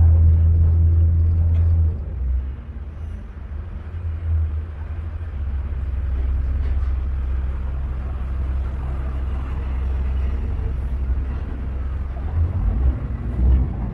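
Steady low rumble of a motorboat under way, its engine drone mixed with wind buffeting the microphone. The rumble eases about two seconds in and then holds steady.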